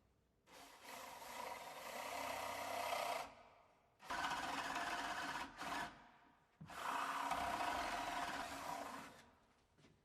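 Power drill with a flat spade bit boring into the wooden edge of a door, in three runs of about two to three seconds each with short pauses between.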